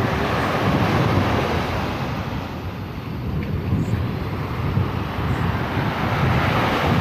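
Surf breaking on a sandy beach in strong wind, the wash swelling louder about a second in and again near the end, with wind buffeting the microphone.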